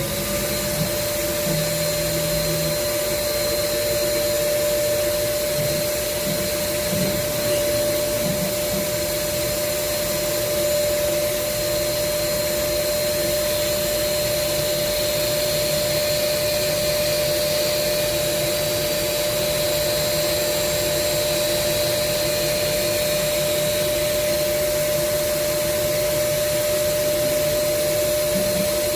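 An AE-30 CNC tool grinder's wheel spindle running at speed while it grinds a 10.5 mm drill bit: a steady motor whine over an even hiss.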